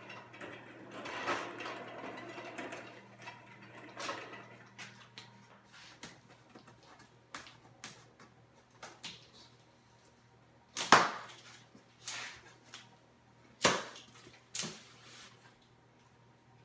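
Handling noises as machine parts and packing are worked with by hand: a rustle in the first few seconds, then scattered sharp knocks and clicks, the loudest about eleven and fourteen seconds in.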